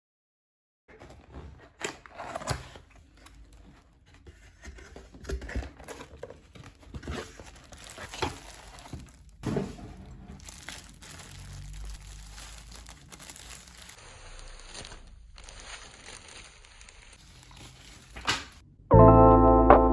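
Packaging being handled and opened by hand: irregular crinkling and tearing with scattered sharp clicks and taps. Music comes in loudly near the end.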